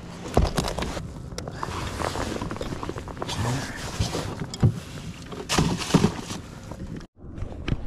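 Irregular knocks, clunks and rustles of handling a fish in a rag and opening a plastic cooler aboard an inflatable boat. The sound drops out briefly near the end.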